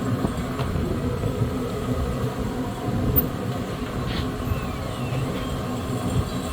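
A steady low rumble of outdoor background noise with a few faint ticks, in the manner of traffic or wind on the microphone.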